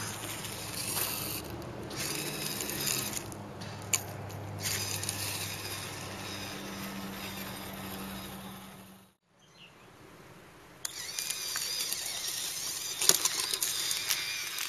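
Small electric gear motors of a homemade spool-tank robot whirring steadily as its spiked wheels crawl over gravel, the gravel crunching and clicking beneath them. After a short break, crackling and rustling with sharp clicks, as of dry leaves and twigs being crushed.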